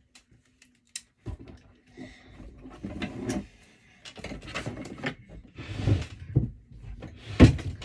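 Rummaging and handling noises: scattered clicks, knocks and short rustles as objects are moved about, with one sharper knock near the end.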